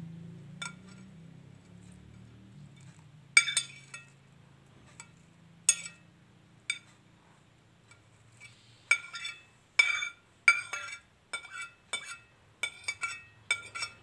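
A utensil clinking against a bowl as sliced papaya leaves are put into it: a few scattered clinks at first, then a quicker run of clinks over the last five seconds.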